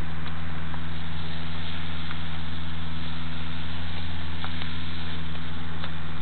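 Model airplane's .90 two-stroke glow engine idling at a steady pitch.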